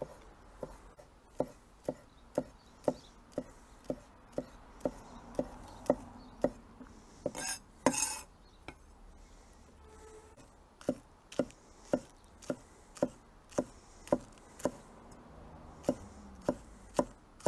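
Kitchen knife chopping spring onions into rings on a cutting board, a crisp cut about every half second, with a pause of a few seconds near the middle.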